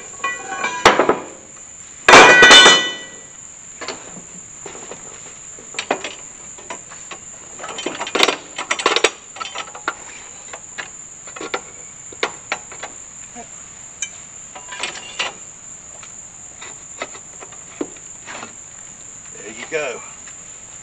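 Metal clanks and knocks from a Harbor Freight manual tire changer as a tire is set on it and its bead-breaker lever is worked, with two loud ringing metallic clatters in the first three seconds and lighter knocks after. A steady high insect drone runs underneath.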